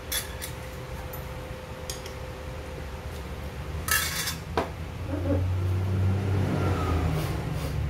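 Stainless steel chopsticks and spoon clinking and rattling against an empty stainless steel bowl: a few light clicks, then a short rattle and a sharp clink about four seconds in. A low rumble follows from about five seconds in.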